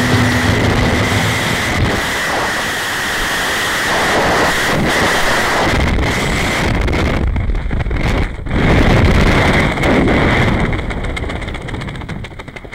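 Turboprop aircraft engines running with a steady high whine, mixed with wind rushing over the microphone. The noise grows quieter near the end.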